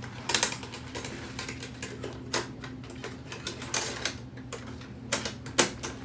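Paper towel rustling and crinkling in irregular crackly clicks as a budgie is caught and held in it, over a faint steady low hum.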